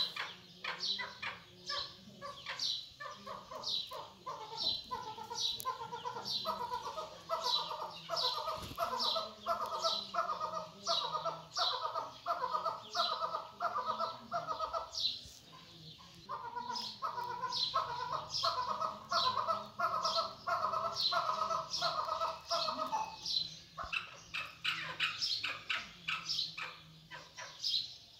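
Partridge of the chukar kind calling: two long bouts of fast rhythmic clucking notes, the first starting about six seconds in and the second after a short break, with sharp high chirps repeating all the way through.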